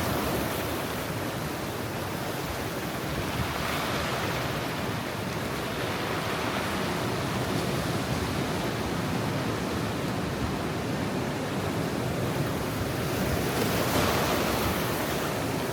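Ocean surf at high tide: a steady wash of breaking waves, swelling about four seconds in and again near the end.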